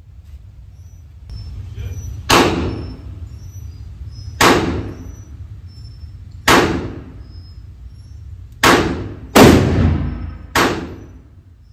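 Six shots from a .44 Magnum revolver. The first four come about two seconds apart and the last three quicker, each followed by a ringing echo off the walls of an indoor range.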